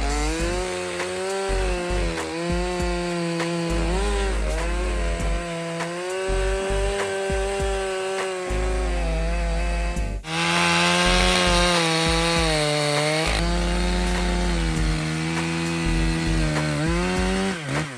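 STIHL MS661 C-M two-stroke chainsaw running under load, cutting wood. Its engine pitch sags and recovers as the chain bites, with a short break about ten seconds in, followed by louder cutting.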